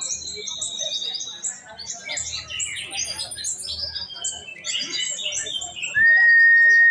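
Sunbird ('kolibri ninja') singing a rapid, high twittering song of quick chirps. Near the end a loud, steady whistled tone holds for about a second.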